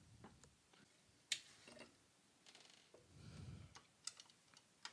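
Faint, sparse clicks and ticks of a Phillips screwdriver working a screw out of the metal frame inside a Sony PVM 20L5 CRT monitor, the sharpest click about a second in, another near four seconds, with a soft low rumble of handling between them.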